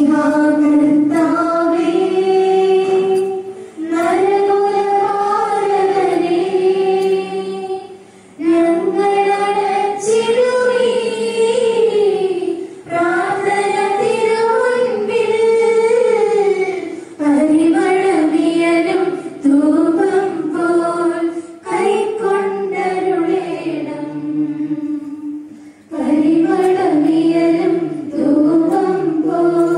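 Voices, mostly women's, singing a devotional church hymn together, unaccompanied, one melody in phrases of two to four seconds with short breaks between.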